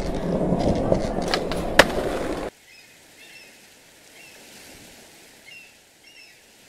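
Skateboard wheels rolling, with a couple of sharp clacks, cutting off suddenly about two and a half seconds in. After that, faint ambience with a few short, high chirps.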